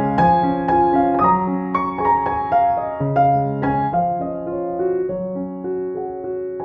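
Background music on piano: a melody of single notes over held lower chords.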